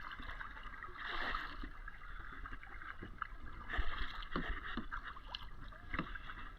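Kayak paddle strokes splashing and dripping in the water, with swells of splashing about a second in and again about four seconds in, and a few light knocks.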